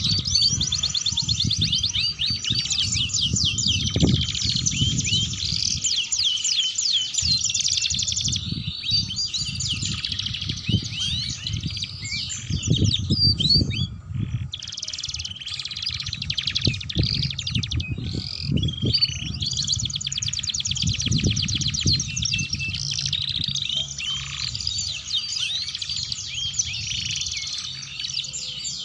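Domestic canaries in full song: long runs of fast trills and chattering rolls of high notes, with short breaks now and then. An uneven low rumble runs underneath.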